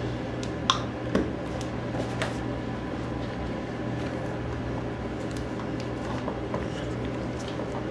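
Light clicks and taps of plastic PVC pipe fittings being handled and brushed with PVC cement, over a steady low hum. The sharpest clicks come about a second in.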